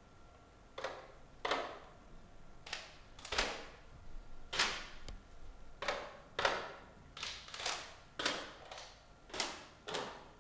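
Choir's body percussion: about fifteen sharp, irregular percussive hits, each with a brief hissing tail, without singing.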